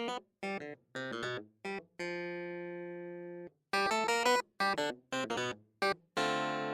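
Instrumental background music: a run of short, clipped notes with two longer held notes.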